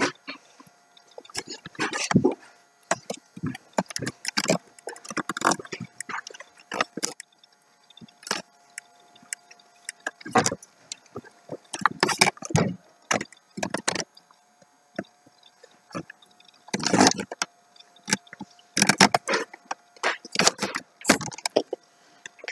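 Irregular knocks, scratches and rustling as cats clamber over the top of a quilt-draped door, mixed with close handling noise from the phone. The sounds come in uneven clusters of sharp clicks and scrapes, with a few quiet gaps.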